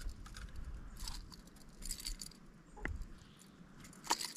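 Scattered light metallic clinks and rattles of fishing tackle being handled in the boat. A sharper click comes about three seconds in and another near the end.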